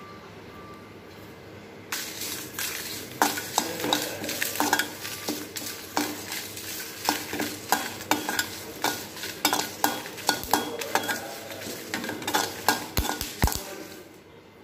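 Steel spatula stirring dried red chillies and curry leaves in a dry kadai, with no oil, scraping and knocking against the pan in quick irregular strokes. The stirring starts about two seconds in and stops near the end. It is the dry-roasting of whole spices for a ground masala.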